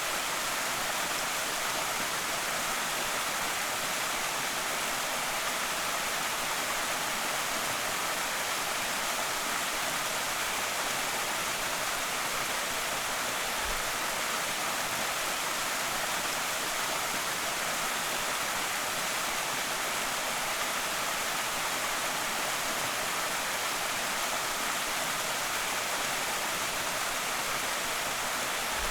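Small creek waterfall rushing steadily: an even, unbroken hiss of falling and splashing water.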